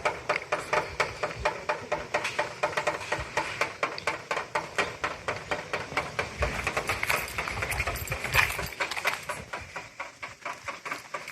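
Rainwater dripping off a roof, the drops landing in a quick, rhythmic patter of about five plinks a second, each with a short ringing tone, like drumming.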